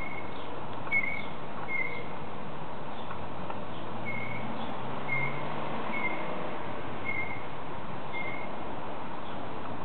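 A small bird chirping, short single high notes roughly once a second, over a steady background hiss.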